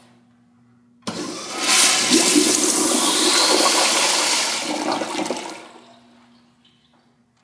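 Old Crane toilet flushing: a loud rush of water starts suddenly about a second in, runs for about four seconds, then tails off to a faint trickle.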